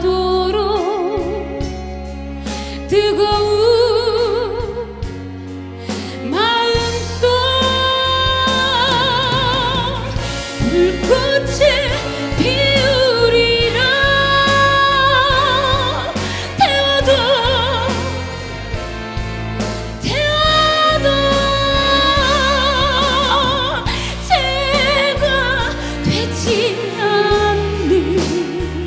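A woman singing a slow Korean ballad with a live band accompaniment, holding long notes with a wide vibrato.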